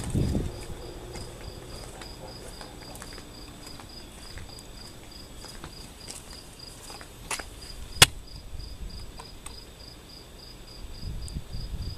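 A cricket chirping steadily at about three to four chirps a second, with a sharp click about eight seconds in.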